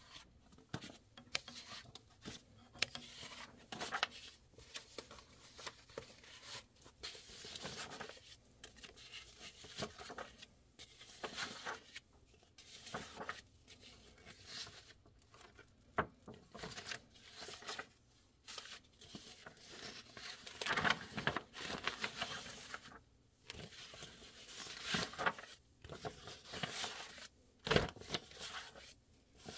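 Paper brochure sheets being leafed through by hand: irregular rustling and flicking as sheets are lifted and turned over, with a sharper paper snap near the end.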